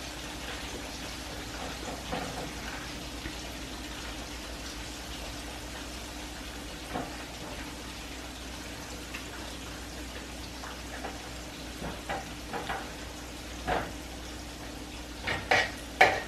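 Flour-coated chicken pieces frying in hot oil in a deep skillet: a steady sizzle, with scattered clicks and taps of metal tongs as pieces are lifted and laid in the pan, the loudest few near the end.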